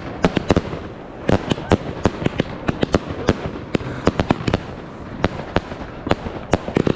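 Aerial fireworks going off: a rapid, irregular run of sharp bangs, several a second, from shells and battery shots bursting, over a steady background of more distant bangs and crackle.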